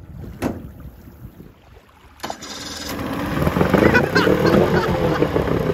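Old Johnson two-stroke outboard motor starting about two seconds in, catching right away, then running with its pitch rising and levelling off.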